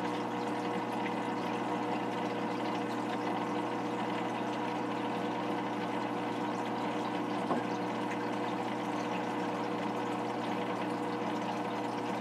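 Aquarium filter running: a steady motor hum with a constant wash of moving water, and one faint click about seven and a half seconds in.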